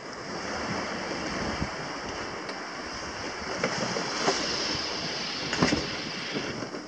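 Steady rush of sea water and wind as a sailing yacht moves through open-sea waves, with a couple of brief sharper splashes near the middle.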